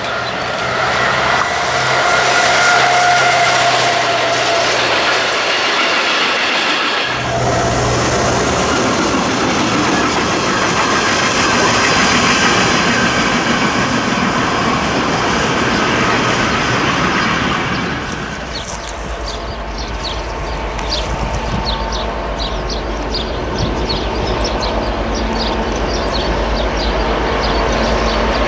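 Vossloh G1000 diesel-hydraulic locomotive running past with a steady engine drone. From about a quarter of the way in, its train of silo tank wagons rolls by with a clickety-clack of wheels over the rails. In the last third a low steady rumble with faint rapid ticks comes in.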